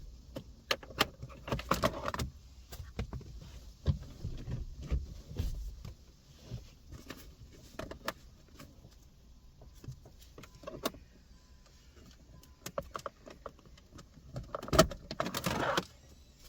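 Plastic trim of a car's centre console being prised loose and handled: scattered clicks, knocks and rattles of plastic, with a louder burst of clatter near the end.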